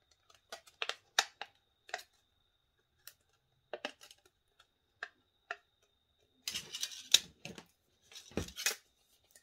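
Thin aluminium can sheet crinkling and clicking as its scored edges are pressed over by fingers, in scattered sharp clicks. Two denser bursts of crackling handling noise come in the last three seconds.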